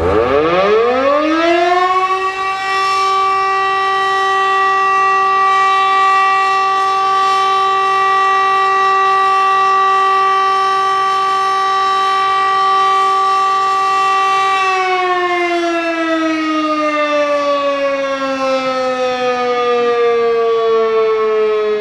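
Auer LS10 electric motor siren starting up, rising in pitch to full speed within about two seconds, holding one steady tone for the siren test signal, then winding down with a slowly falling pitch from about fifteen seconds in as the rotor coasts, on a siren whose bearing is suspected to be damaged.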